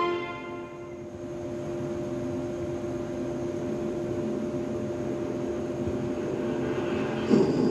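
Low, steady rumbling drone from a film trailer's opening soundtrack, with held low tones that slowly swell, then a sudden louder hit near the end; heard through a TV's speakers.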